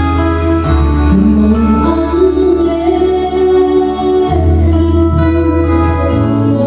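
A worship song with guitar and held bass notes playing over a sound system, with a girl's voice singing along into a microphone.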